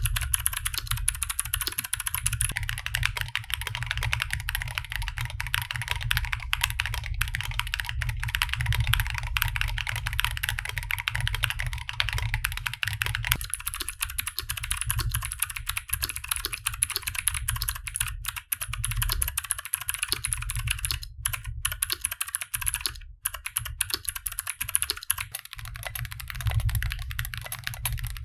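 Continuous fast typing on a Shurikey Gear Hanzo mechanical keyboard with Varmilo EC Ivy V2 switches: a dense, uneven stream of key clicks, with a couple of brief pauses about three-quarters of the way through. The switches are very noisy, much like blue switches.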